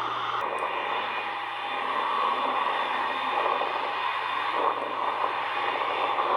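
Airbus A320 jet noise: a steady rushing sound with a low hum underneath.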